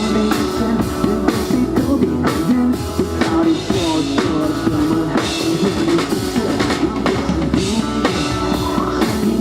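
Live rock band playing an instrumental passage, a drum kit keeping a steady beat under sustained instruments.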